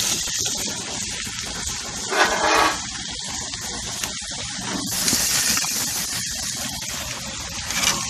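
Flank steak and a skillet of peppers and onions sizzling on a gas grill, a steady hiss with a brief louder rush about two seconds in.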